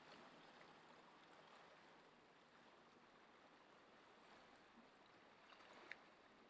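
Near silence: a faint, even wash of small waves on a rocky shore, with a short faint click about six seconds in.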